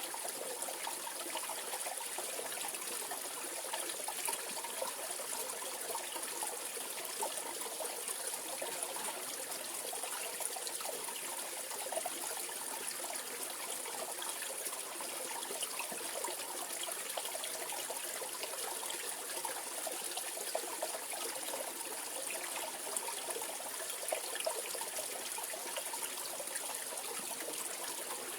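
Mountain valley stream flowing, a steady trickling and splashing of water with constant fine flicker.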